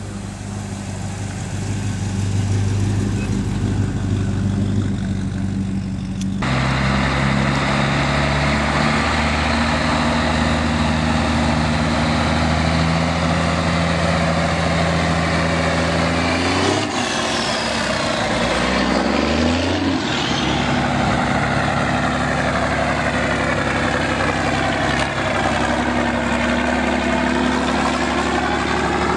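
Antique truck engines running as trucks drive slowly past one after another, a steady low engine note. The sound changes abruptly about six seconds in, and two-thirds of the way through the engine pitch slides down and back up.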